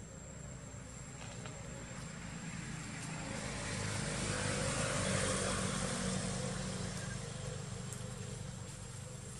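A distant engine drone passing by, swelling to its loudest about five seconds in and then fading away. Steady insect buzzing runs underneath.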